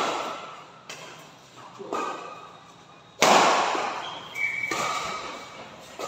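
Badminton rally in an echoing hall: several sharp racket hits on the shuttlecock about a second or so apart, the loudest about three seconds in, each ringing on in the hall's reverberation, with a short squeak from the court soon after.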